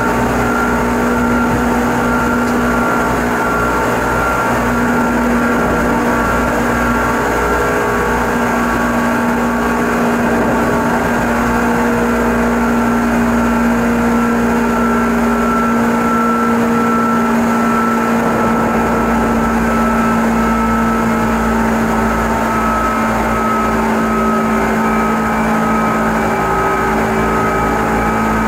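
Seibu 10000 series electric train running at a steady speed, heard from inside a passenger car: a steady motor and gear hum with several held tones over the rumble of wheels on rails.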